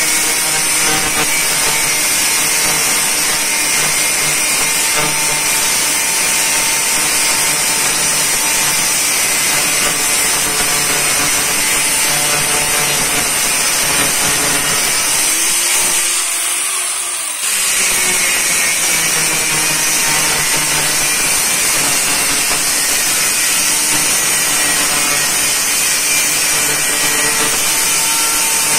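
Handheld electric angle grinder with a cut-off disc cutting into metal: a steady high-pitched whine over a harsh grinding noise. The noise dips briefly a little past halfway, then comes back suddenly as the disc bites again.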